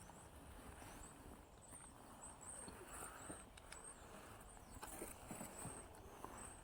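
Near silence: quiet outdoor ambience with a series of faint, short, high chirps a second or so in and again near the end, and a few light knocks.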